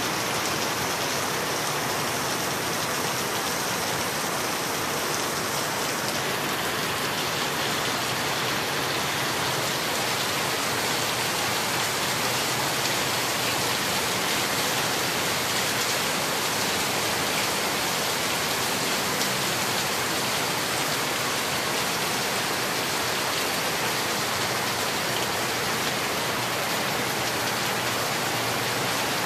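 Heavy rain pouring down steadily, splashing on a concrete yard and corrugated metal sheets, a constant even hiss with no let-up.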